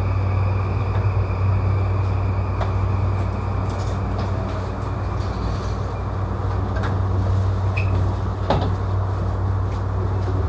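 Cabin noise of a JR E235-series electric train running: a steady low rumble with scattered light clicks, and a sharper knock about eight and a half seconds in.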